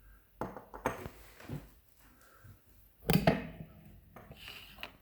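Small metal lock parts (pins and lock hardware of a disassembled DOM iX5) clicking and clinking as they are handled, with a few light clicks early and a louder clatter about three seconds in.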